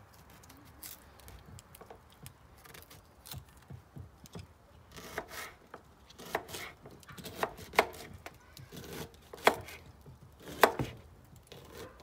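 Kitchen knife slicing a quince into wedges on a wooden cutting board: irregular knocks of the blade through the firm fruit onto the board, faint at first and louder and more frequent in the second half.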